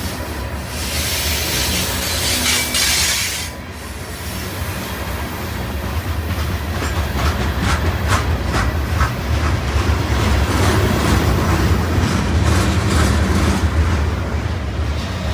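CN freight train rolling past at close range, with a steady low rumble of the cars. A bright high hiss or squeal from the wheels comes in the first few seconds, and about halfway through there is a quick run of clicks as wheels pass over rail joints.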